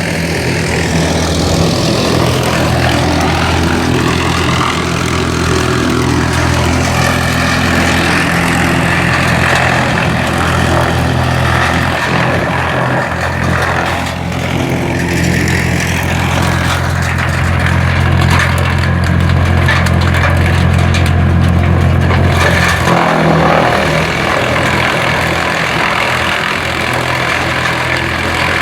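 Tractor-driven wood chipper at work: the steady hum of the Massey Ferguson 3070's engine under the rough, continuous noise of the chipper. The engine note dips briefly about three-quarters of the way through.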